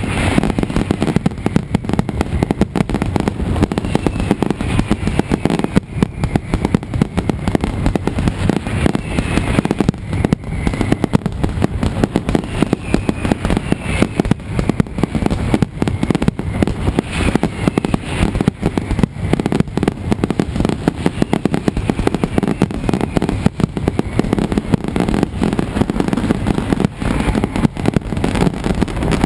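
Mascletà firecrackers going off in a dense, unbroken barrage of rapid bangs, with occasional whistles falling in pitch above them.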